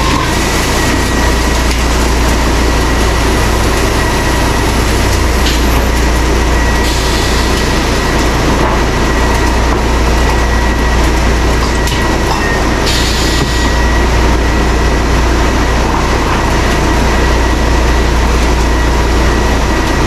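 Wood-Mizer band sawmill and Baker edger running together: a loud, steady mechanical din with a constant high whine over a deep hum, turning harsher and hissier for a couple of short stretches.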